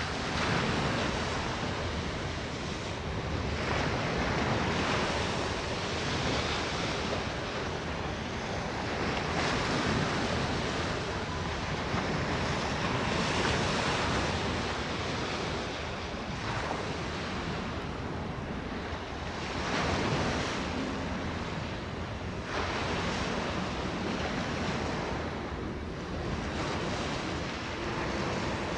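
Waves washing on the shore in surges every few seconds, with wind buffeting the microphone.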